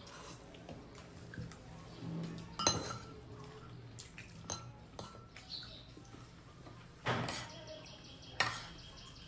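Dishes clinking during a meal: a handful of sharp clinks of plate and utensils, the loudest about a third of the way in and two more near the end, with softer clinks between.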